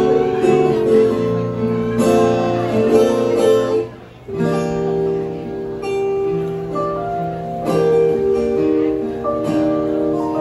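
Live band playing an instrumental passage led by a strummed acoustic guitar, with electric bass underneath. The music drops away briefly about four seconds in, then comes back in.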